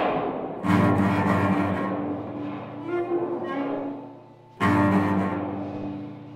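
Cello playing two loud, low bowed notes about four seconds apart, each starting suddenly and fading away, with a brief higher note in between.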